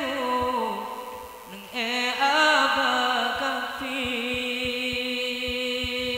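A solo voice singing slow, drawn-out, ornamented notes. The singing dips briefly about a second and a half in, then settles into one long held note, with faint low taps underneath.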